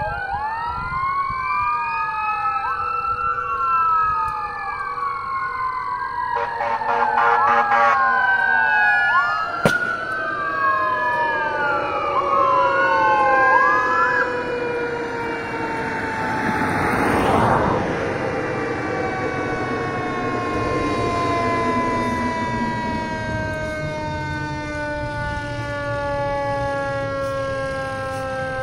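Fire engine sirens approaching: an electronic siren wails in quick rising and falling sweeps that stop about halfway through. Beneath it, a steady siren tone slowly falls in pitch throughout. There is a brief burst of noise a little past the middle.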